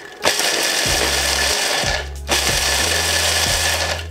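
Electric mini chopper grinding walnuts in two pulses of about two seconds each, with a short break between them, pulsed so the nuts stay coarse rather than turning to powder.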